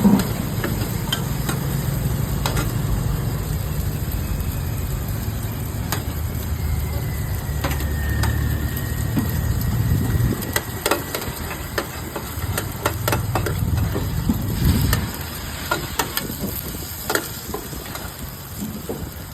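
Seafood noodles stir-frying in a wok: sizzling, with a metal spatula repeatedly knocking and scraping against the pan, over a steady low rumble that stops about fifteen seconds in.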